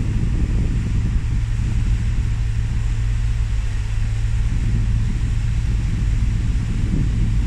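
Steady low drone of marine engines over rushing, churning water in the wash between a pilot boat and a moving ship's hull.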